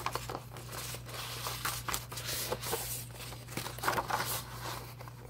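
LP record sleeves and their plastic covers being handled, in irregular bouts of rustling and crinkling over a steady low electrical hum.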